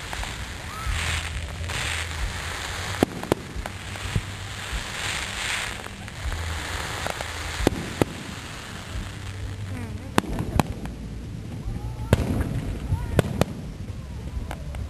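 Aerial fireworks display: shells bursting in sharp bangs every second or so, with two long crackling bursts of hiss in the first half.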